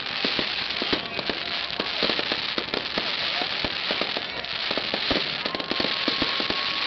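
Fireworks display: rapid crackling and popping over a steady hiss, with a held whistling tone from about five and a half seconds in.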